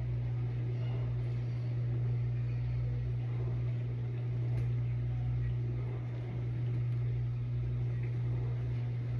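Kitchen vent fan running over the stove: a steady low hum with an even hiss.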